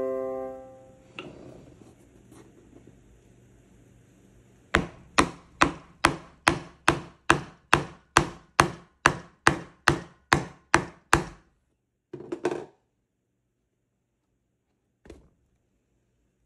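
A white mallet striking a small metal leather-craft setting tool held against a leather bag, about sixteen even blows at roughly two and a half a second, then a quick double knock and one faint knock near the end.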